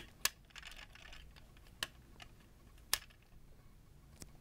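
Toy Hummer H2 police car being handled, its door worked by fingers: a handful of sharp plastic clicks, irregularly spaced, the loudest at the very start and just after, with light rustling in the first second or so.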